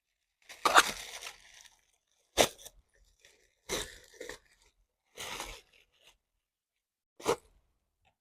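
Plastic packaging crinkling and rustling in five short bursts as a vacuum accessory is handled and unwrapped.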